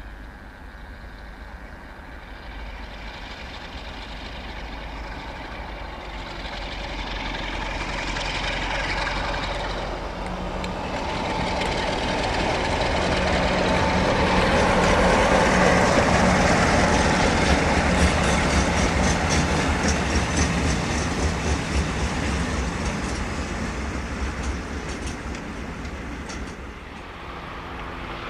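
Class 47 diesel locomotive hauling a train of loaded flat wagons passes by: the engine's steady drone grows louder to a peak about halfway through, then the wagons rattle and click over the rail joints as the sound fades away.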